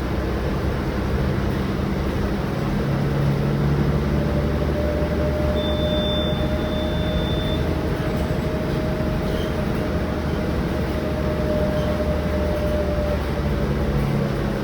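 Rear-engined Mercedes-Benz O-500M bus running with its diesel engine, with a steady whine over most of it that rises slightly and then falls. A thin high tone sounds for about two seconds around six seconds in.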